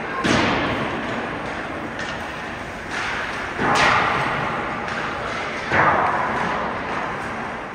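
Hockey pucks striking the rink boards: three loud knocks, each with an echoing decay, and fainter knocks between them.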